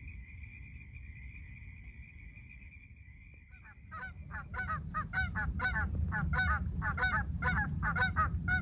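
Geese honking: a quick run of short honks, about two or three a second, begins about three and a half seconds in and grows louder. Before them a faint steady high tone is heard over a low rumble.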